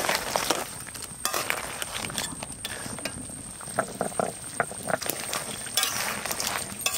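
Crab curry bubbling at a boil in a wok, with small pops and a spatula stirring through it, busier at the start and again about six seconds in.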